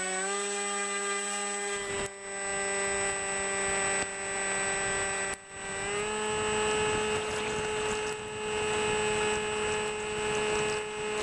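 A model aircraft's motor and propeller running hard in flight, a steady buzzing whine with a thin high tone above it. The pitch steps up slightly about six seconds in, and the level dips briefly twice.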